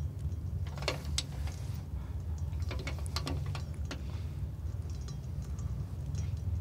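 A run of short mechanical clicks and knocks, a few close together, over a steady low hum.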